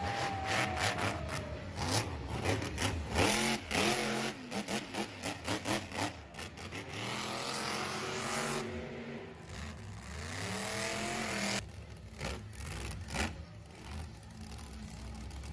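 Monster truck engine revving hard, its pitch falling and rising again as the truck spins donuts. A run of sharp pops comes a few seconds in, and a stretch of hissing tire-spin noise follows in the middle.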